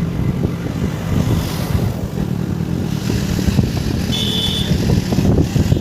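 Road-travel noise from a moving vehicle: a steady low engine-and-wind rumble. A short high-pitched horn beep sounds about four seconds in.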